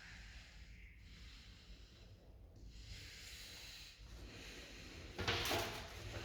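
Faint steady room hiss, then about five seconds in a short breathy rush close to the microphone, like a sharp exhale or sniff.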